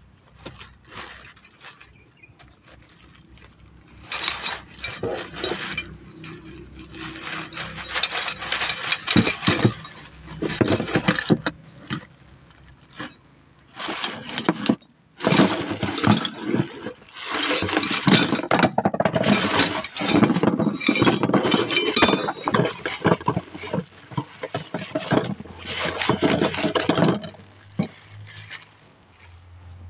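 Metal hand tools (wrenches and pliers) clattering and clinking against each other as they are shaken out of a cloth bundle onto a tray, in repeated bursts over most of the stretch.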